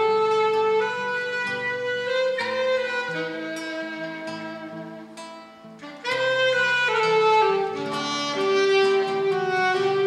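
Saxophone playing a slow melody of long held notes over a lower accompaniment, breaking off briefly just before the six-second mark and then starting a new phrase.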